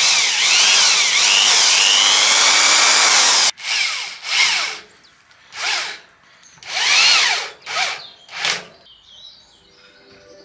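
Cordless drill boring a confirmat pilot hole into the end of a pine slat for about three and a half seconds, then stopping suddenly. It follows with about six short bursts on the trigger, the motor whining up and down in pitch, driving a confirmat screw into the frame corner.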